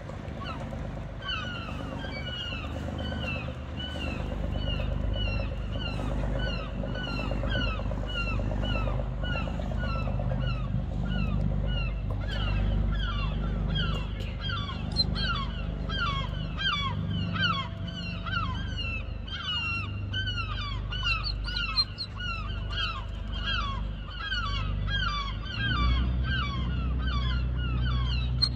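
A chorus of gulls calling over and over, short falling cries that overlap and grow thicker about halfway through, over a steady low rumble.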